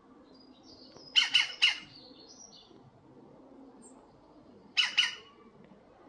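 European green woodpecker giving harsh, squawky calls: three short ones in quick succession about a second in, then one more near the end. Faint high chirps run under the first half.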